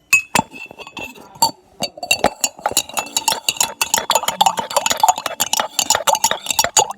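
A metal spoon stirring briskly in a cup of tea, clinking rapidly and repeatedly against its sides with a ringing tone.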